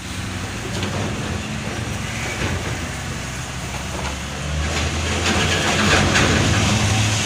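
Large truck engine running as it goes by, swelling louder about five to six seconds in.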